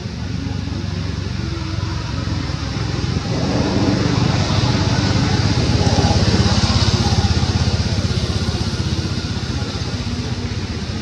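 A motor vehicle's engine running, growing louder from about three seconds in and easing off again toward the end, as if passing by.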